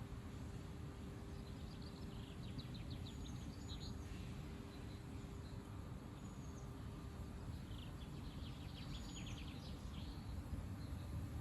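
Wind rumbling on the microphone, steady and low, with a small bird's quick run of high chirps twice, about two seconds in and again near the end.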